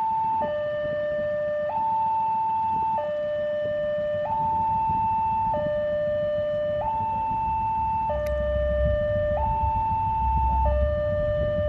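Railway level-crossing warning alarm sounding its two-tone signal, a higher and a lower tone alternating, each held a little over a second, warning that a train is approaching. Underneath, the low rumble of a diesel locomotive grows louder from about eight seconds in.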